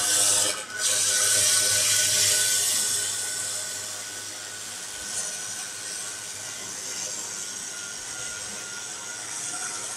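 Spindle of a homemade servo CNC router running with a steady high whine while its fine bit cuts lines into plywood, over a hiss of cutting. The sound dips briefly just after the start and drops to a lower level about three seconds in.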